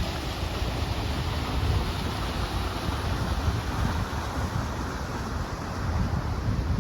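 Wind buffeting the microphone in an irregular low rumble, over a steady rushing noise.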